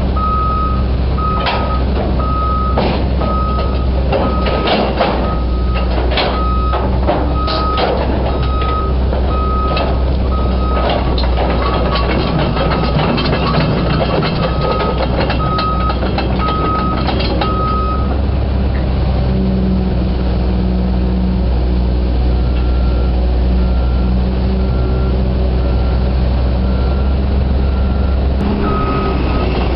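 CAT 320 excavator's diesel engine running with its travel alarm beeping about once a second as it tracks, and sharp clanks and knocks through the first half or so. Near the end a second, slightly higher beep joins in more faintly.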